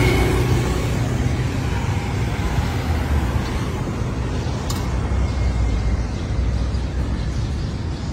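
Street traffic ambience: a steady low rumble of road noise, with a motorcycle passing close by near the start.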